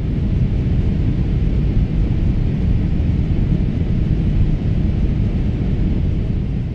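Steady low rumble of an airplane's engines, with no distinct tones or impacts.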